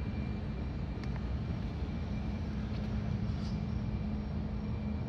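2005 Victory Kingpin Arlen Ness Edition's V-twin engine idling steadily, an even low rumble.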